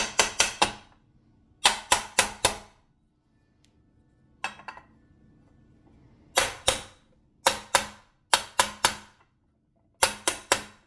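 Hammer tapping a bearing driver to seat the large crank bearing into a heated Honda TRX250R crankcase half, in quick bursts of about four ringing metal taps every second or two. The bearing is a tighter fit than expected and needs tapping to drive it home.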